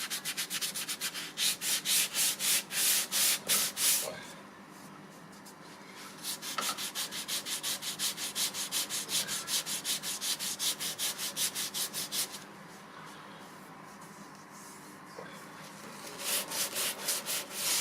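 Sandpaper rubbed back and forth by hand over MDF in quick, even strokes, about five a second, in three runs with short pauses between: smoothing a filled, damaged area with 120-grit paper.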